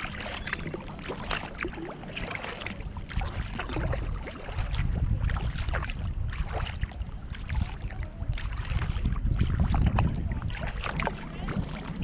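Wind rumbling on the microphone of a camera on a kayak's deck, gusting louder twice, with splashes and drips from paddle strokes in the water.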